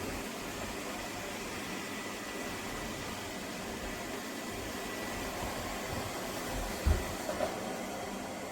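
Steady whirring noise of a robot vacuum cleaner running, with a brief thump about seven seconds in.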